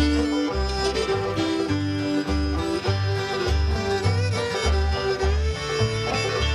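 Old-time string band playing the instrumental lead-in to a gospel song, over a steady alternating bass beat.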